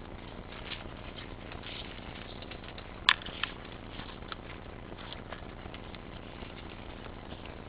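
Pitbull puppies eating dry kibble from a metal bowl: a steady patter of small crunches and clicks of kibble against the bowl, with one sharp, louder click about three seconds in and a smaller one just after.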